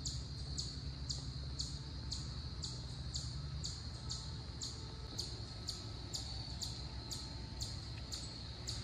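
Insects chirping in a steady rhythm, about two short high chirps a second over a constant high hum, with a low rumble underneath.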